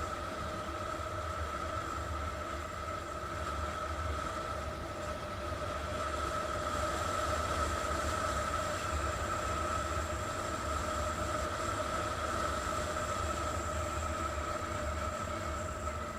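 Engine of a 50 cc Chinese scooter running at a steady cruising speed, a constant drone with a held whine and a low rumble, the pitch hardly changing throughout.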